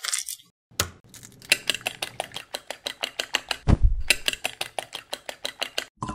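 A fork beating eggs in a glass baking dish, the tines clicking against the glass about seven times a second. There is a single low thump a little after halfway.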